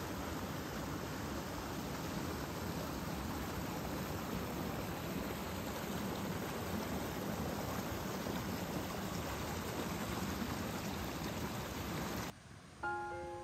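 Small mountain waterfall and stream rushing and splashing over rocks into a pool, a steady rush that cuts off suddenly near the end. A few notes of soft background music begin just after.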